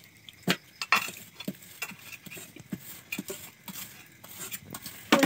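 Metal spatula clinking and scraping against a frying pan while a roti is turned, a string of short, uneven clicks and knocks.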